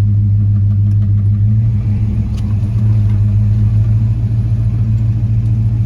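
Vehicle engine running at a steady low speed, a deep even hum, while pushing a truck into a barn.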